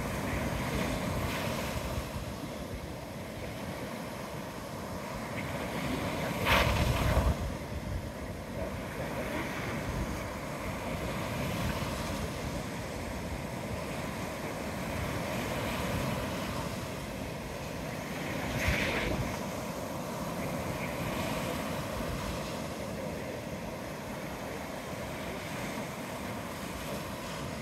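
Ocean surf washing ashore in slow, repeated swells, with wind on the microphone. The loudest rush comes about six and a half seconds in, and a smaller one near nineteen seconds.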